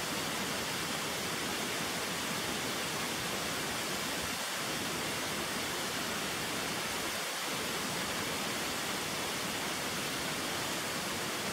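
Steady rush of a mountain stream cascading down over rocks.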